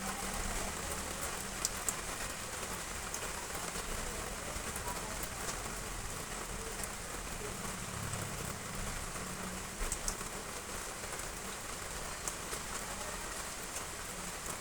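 Heavy rain falling: a steady dense hiss with scattered sharper ticks of individual drops striking close by.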